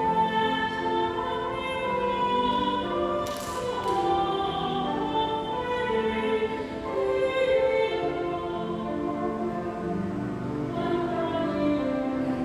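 Voices singing a church hymn over sustained instrumental accompaniment, the held notes changing every second or so.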